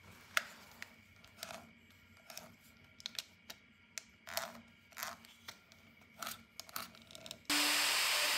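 Light scratches and clicks of a pen tracing around a plastic quartz clock movement held on an epoxy-and-wood clock face. About seven and a half seconds in, a plunge router cuts in abruptly, running loud and steady with a high whine.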